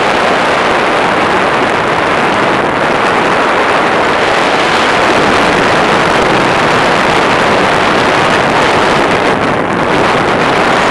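Steady, loud wind rushing over the microphone of a camera carried on a tandem paraglider in flight, dipping briefly a couple of times.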